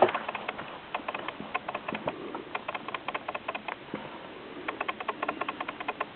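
Pages of a softcover book being handled and turned: quick, irregular light ticks and paper rustle, several a second.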